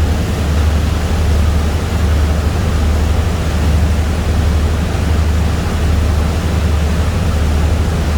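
Boat under way: a steady low engine rumble under a constant rushing of water and wind.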